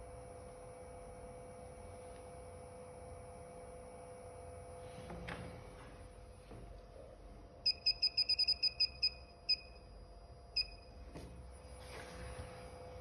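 Digital oscilloscope beeping: a quick run of about a dozen short high beeps, then two single beeps, as its timebase control is clicked through settings. A faint steady hum lies underneath, with a brief rustle of handling about five seconds in.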